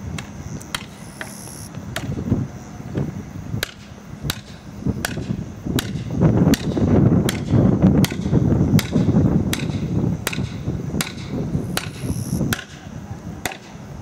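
A felling wedge being driven into the back cut of a standing tree: a steady run of sharp strikes, about one every two-thirds of a second, with a low rumbling noise under them in the middle.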